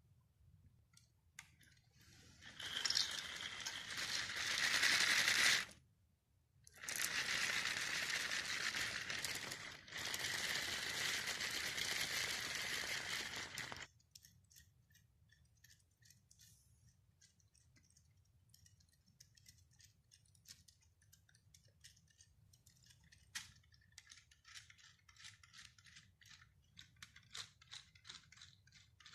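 Small electric motors and plastic gears of a LEGO Technic model bulldozer whirring in three runs of a few seconds each, then only faint scattered clicking.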